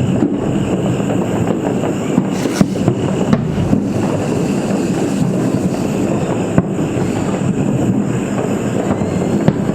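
Dense, steady din of many distant Diwali firecrackers, a continuous rumble and crackle with a few sharper pops standing out.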